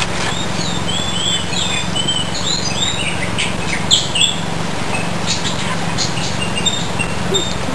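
Small birds chirping, many quick high chirps in a busy run during the first half, then scattered calls later, over a steady low hum.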